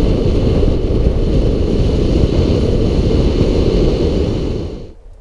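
Wind rushing over the microphone of a camera mounted outside a VW Lupo driving along a road, with tyre and engine noise underneath; it cuts off near the end.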